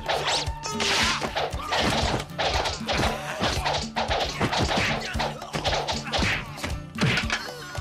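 Fight-scene soundtrack: music with a steady repeating bass under a rapid run of dubbed whacks, hits and swooshes as staffs swing and strike.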